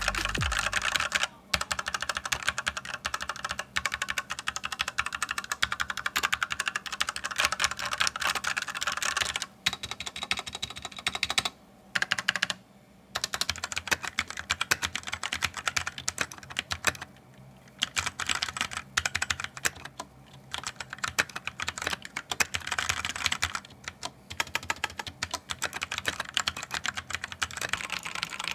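Fast continuous typing on a mechanical keyboard: a dense stream of key clicks and clacks, broken by a few brief pauses.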